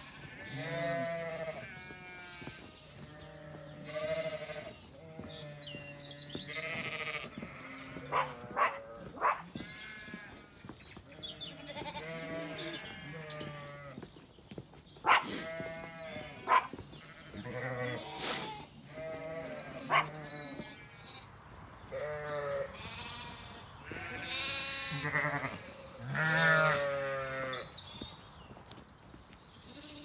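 A flock of Zwartbles ewes and lambs bleating over and over, many wavering calls in quick succession, some overlapping, deep ones and higher ones. A few sharp clicks come around the middle.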